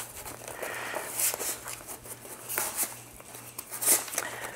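Clear packing tape being picked at and peeled from a small cardboard box, with the cardboard rustling and scraping under the fingers in short, irregular scratchy bursts.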